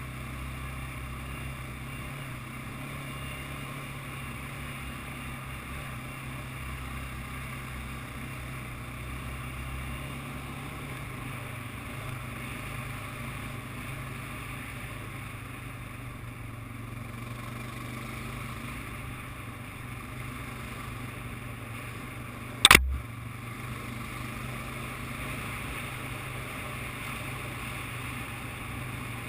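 ATV engine running steadily while riding, its pitch settling slightly lower partway through. One sharp, loud knock cuts through about three quarters of the way in.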